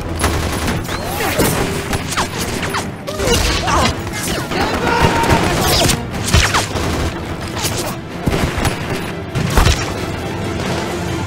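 Rapid gunfire: volleys of shots in quick succession, densely packed and loud throughout.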